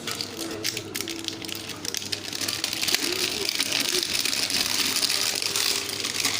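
Packaging being handled and unwrapped: continuous crinkling and rustling with many small crackles, denser in the second half, with faint voices in the background.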